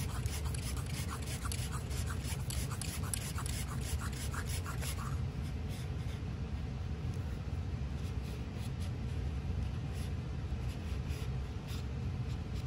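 Threads of the FX Wildcat MK3 air rifle's tube ticking and rasping as it is unscrewed by hand from the action, a quick series of small clicks about three or four a second that stops about five seconds in.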